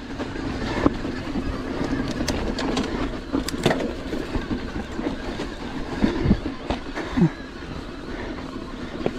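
HPC Trailblazer electric mountain bike ridden over a rocky dirt trail: tyres rumbling over dirt and stones, with frequent sharp knocks and rattles from the bike as it bounces over rocks.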